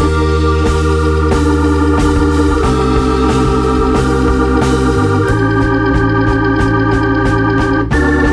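Background music of sustained electronic organ chords over a steady bass, the chord changing about every two and a half seconds.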